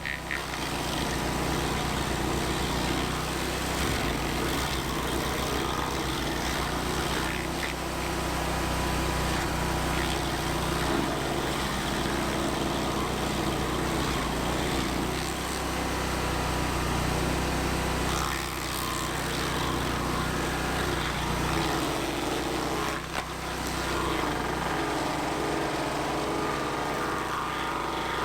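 Vermeer SC362 stump grinder's engine running steadily at working speed, with two brief dips in level.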